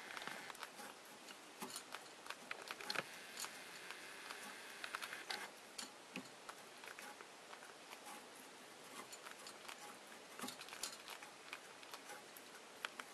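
Cat chewing and licking at a cord held in its mouth: irregular soft clicks and smacks of teeth and tongue, scattered through.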